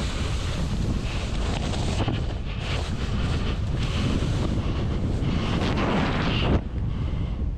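Wind rushing over the microphone as a splitboard rides fast through powder snow. The board's hiss through the snow swells and fades with each turn, with a short dip about six and a half seconds in.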